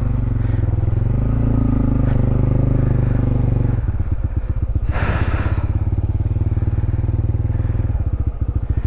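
Honda CB150X's single-cylinder engine running steadily, its note easing a little just under four seconds in. There is a short hiss about five seconds in.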